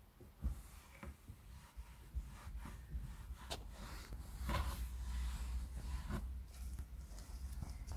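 Microfibre cloth rubbing over a leather car armrest, wiping off foamed leather cleaner in a few short, irregular swishes, over a low rumble.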